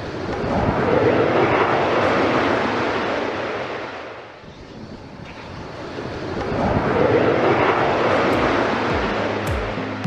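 Airplane noise that swells and fades twice, with no clear engine tone heard through it.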